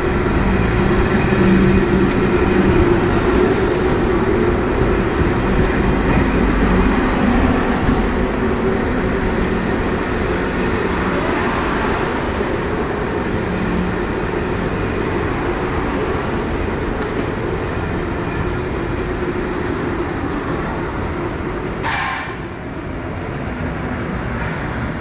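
SJ X2000 high-speed train running on the rails, a continuous rumbling noise with a steady hum over the first several seconds and the overall level slowly falling. A single sharp knock near the end.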